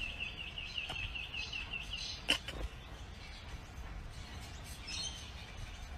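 A small bird trilling: a fast, even run of high chirps, about eight a second, that stops about two seconds in. A single sharp knock follows just after, the loudest sound, then only faint outdoor background.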